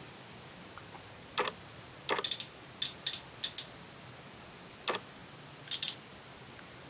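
Wright Tool 3/8-inch drive ratchet with a 41-tooth head clicking as it is worked by hand, in a few short runs of sharp clicks with pauses between.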